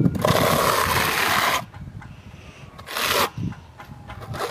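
A steel trowel scraping wet silicone render across a rendered wall in long rasping strokes: a long stroke at the start, a shorter one around the middle, and another beginning near the end.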